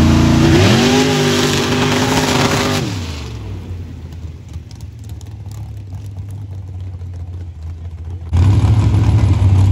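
Mud-racing buggy's engine revving hard at launch, its pitch climbing and holding for about three seconds. It then drops and runs fainter as it goes away down the track. Near the end a louder steady engine idle cuts in abruptly.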